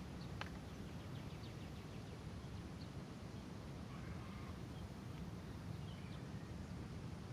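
Faint outdoor background with a steady low rumble, a single sharp click near the start and a few faint, short high chirps.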